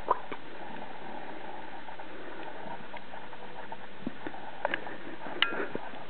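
A few scattered light taps and clicks over a steady background hiss, with one short high chirp about five and a half seconds in.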